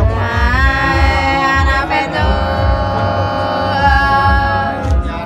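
Nùng women singing hát sli, the Nùng folk love-song style, in long drawn-out notes with a wavering pitch. A steady low thumping beat runs underneath.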